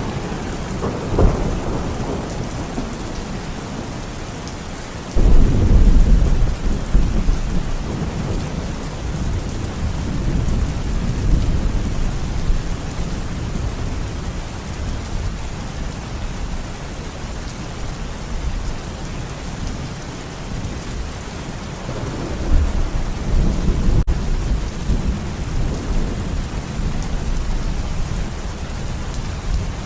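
Steady heavy rainfall hissing, with thunder rumbling over it: a brief clap about a second in, a sudden loud crash about five seconds in that rolls on for several seconds, and another long rumble about two-thirds of the way through.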